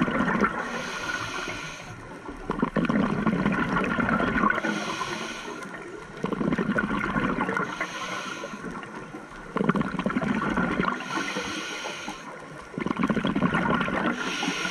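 Scuba diver breathing through a regulator underwater: a hiss on each inhale alternating with a gush of exhaled bubbles. It repeats every three to four seconds.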